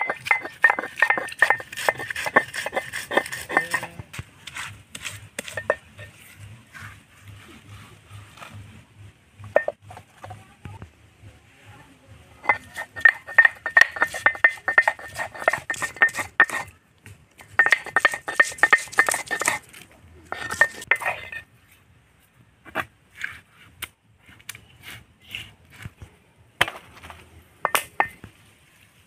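Stone roller crushing and grinding garlic on a flat stone grinding slab (sil-batta): rapid knocks and grating stone-on-stone scrapes in several bursts of a few seconds each, with pauses between them.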